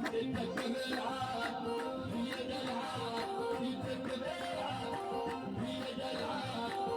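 Hoseit, a Beja folk song: a voice singing a gliding melody over a steady, rhythmic accompaniment with a regular beat.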